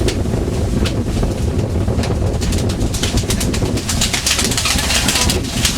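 Fishing boat's engine running with a steady low drone, under a hissing rush that fades for a few seconds and comes back.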